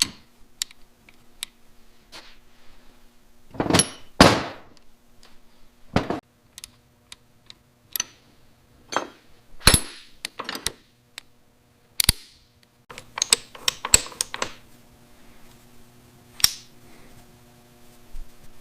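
Irregular clicks and sharp knocks of tools and metal parts being handled, with two short scraping sounds about four seconds in, over a faint steady hum.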